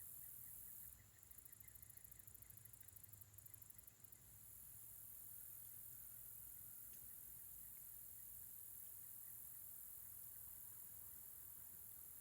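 Near silence: faint outdoor background with a steady high hiss, and a fast, faint high-pitched ticking from about one second in to about four seconds in.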